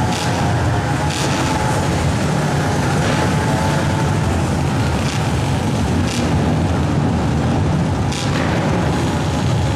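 Several youth mini quad ATV engines running hard together as the quads race around a dirt oval, a steady, continuous din inside an indoor arena.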